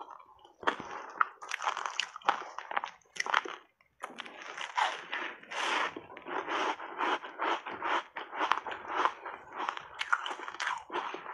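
Close-up crunching and chewing of frozen passionfruit block ice coated in matcha powder: a run of crisp crunches, a short pause about three and a half seconds in, then a fresh big bite and steady crunching.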